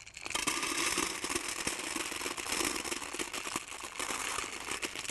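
Lumps of calcium oxide (quicklime) pouring from a plastic bottle into a metal pan: a continuous rattle of many small pieces clicking onto the metal, starting about a third of a second in and easing off near the end.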